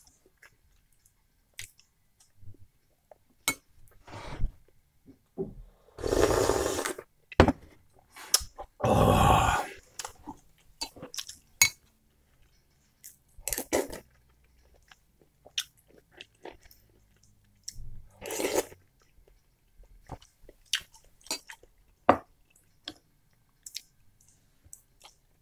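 Close-up mouth sounds of a person eating borscht and string cheese: chewing with scattered short clicks, and a few louder noisy sounds lasting about a second, the biggest around six and nine seconds in. A metal spoon clinks now and then in a glass bowl.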